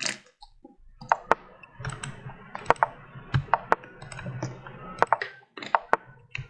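Scattered sharp clicks at an uneven pace, like a computer mouse and keyboard being used, over a faint low hum.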